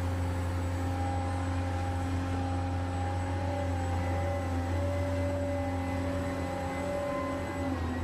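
Huina 1580 RC excavator's electric motors whining steadily under a low hum as the arm and bucket dig, the pitch dipping briefly near the end.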